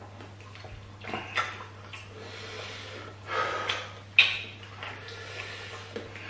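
Close-up eating sounds: wet smacking and squelching of hand-eaten banku and slimy okra stew, with short sharp smacks, the loudest about four seconds in. Sniffing and heavy breathing from a man eating very peppery food, over a faint steady low hum.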